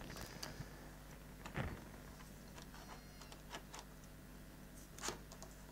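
Faint clicks and knocks of a motorcycle exhaust silencer being handled and pushed onto its link pipe and mounting bracket, a few separate taps over a steady low hum.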